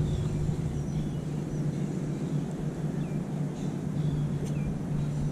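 Outdoor ambience: a steady low hum under a light hiss, with a few faint, brief high chirps.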